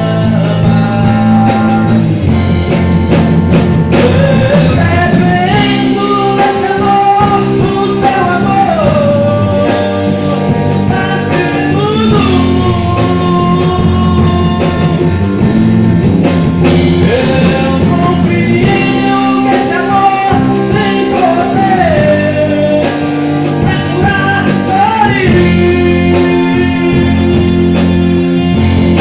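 A band playing a song at rehearsal: drum kit, bass and guitar under a long, held melody line that glides from note to note.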